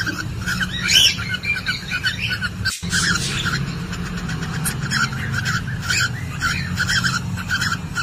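Cockatiel mating calls: a rapid run of short repeated chirps, with louder calls about one second and three seconds in and a brief break just before the second of them.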